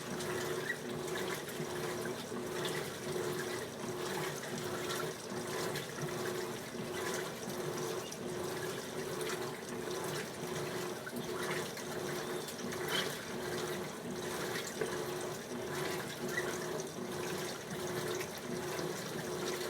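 Electrolux LT15F washing machine in its rinse stage with jeans: water sloshing and splashing in the tub over a motor hum that pulses on and off at a regular rhythm as the agitator drives back and forth.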